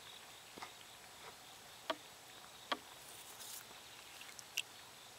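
Faint lakeside insect chirring with four small, sharp taps and plops, spread out, as a stick dabbles in the shallow water among pebbles.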